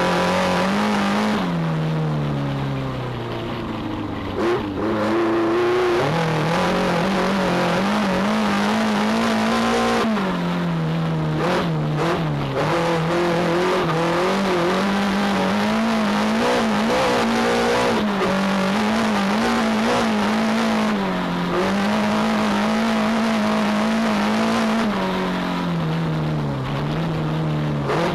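Engine of a 2-litre class dirt-track race car heard from inside the cabin, pulling hard. Its pitch drops several times as the driver lifts or changes gear, then climbs again.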